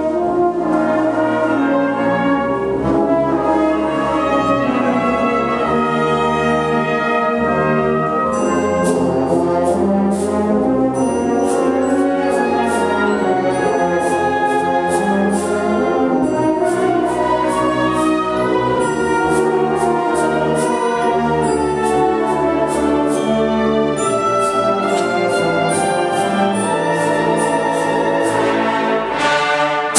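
Symphonic wind band playing, brass to the fore over woodwinds and low instruments. About eight seconds in a fast, steady percussion beat joins.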